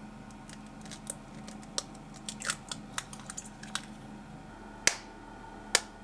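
Small clicks and crinkles from objects being handled, then two sharp clicks about a second apart near the end, over a low steady hum.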